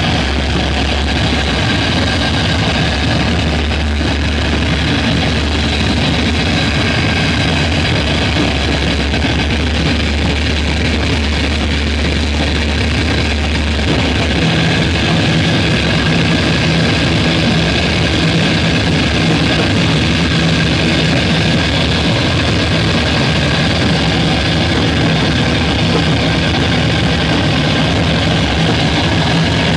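Loud, continuous electronic drone from a chain of guitar effects pedals, with layered sustained tones over a deep low hum. About halfway through, the low hum drops out and a steadier mid-low tone takes over as the pedal knobs are turned.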